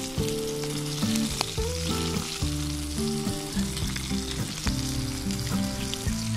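Chicken wings deep-frying in hot oil: a steady sizzling crackle with scattered small pops.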